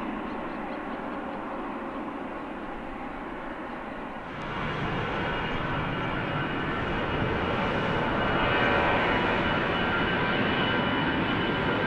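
Jet airliner engines: a steady rumble, then, after an abrupt change about four seconds in, a louder engine roar with a high whine that grows steadily as the aircraft comes closer.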